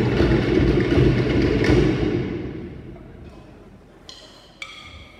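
Cook Islands drumming, dense and fast with a deep low pounding under sharp wooden strokes, stopping about two seconds in and fading out over a second. Two single knocks with a ringing tone follow near the end.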